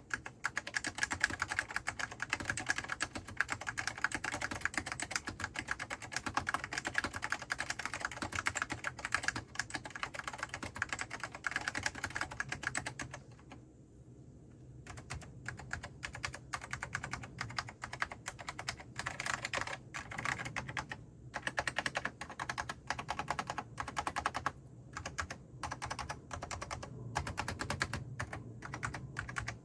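Fast typing on an Apple Extended Keyboard with Alps SKCM Orange tactile switches that have been lubed, so there is no spring noise. The keystrokes come as a dense run of clicks, stop for about a second and a half near the middle, then resume with more space between them.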